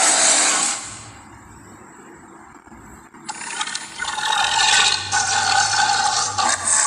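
Ceratosaurus sound effect: a loud, hissing, rasping creature call that fades about a second in, then a second rasping, rattly call starting about three seconds in.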